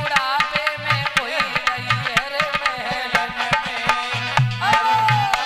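A woman singing a devotional bhajan to a drum accompaniment with a steady beat, her melody winding up and down and settling into a long held note near the end.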